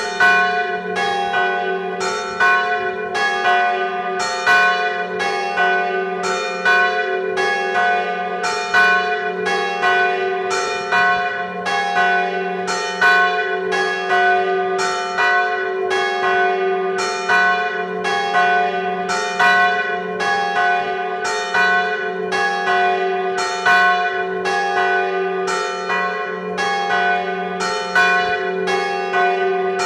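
Church bells ringing a death knell (glas), heard close up in the belfry: a large swinging bell struck over and over by its clapper, a steady run of strokes about one a second over a deep, sustained hum.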